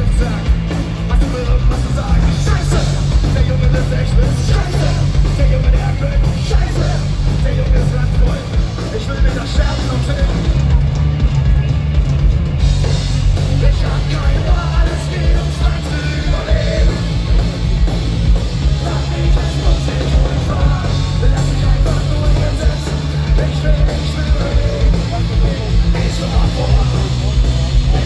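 Punk rock band playing live at loud volume, with drums and yelled vocals over a heavy, boomy low end.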